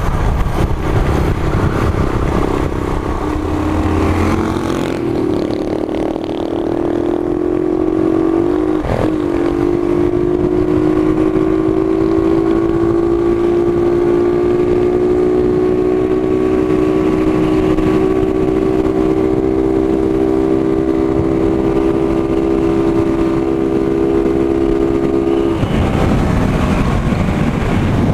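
Honda CG 125 single-cylinder four-stroke motorcycle engine running under way, its note holding steady and slowly rising in pitch for about twenty seconds, then dropping away suddenly a couple of seconds before the end. Wind rumbles on the microphone throughout.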